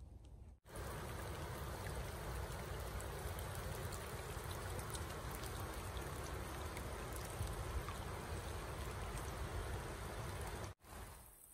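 Steady rain falling on a slow river's surface, an even hiss of countless drops. It starts abruptly about half a second in and cuts off just before the end.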